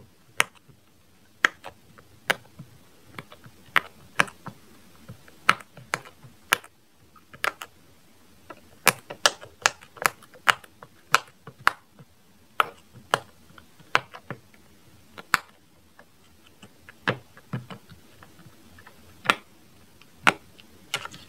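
Silicone pop-it fidget toy, its bubbles pressed in one after another by a finger: a long string of small, sharp pops at an uneven pace, about one or two a second.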